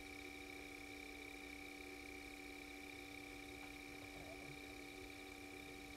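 Faint steady hum made of several constant tones, with one faint click about three and a half seconds in.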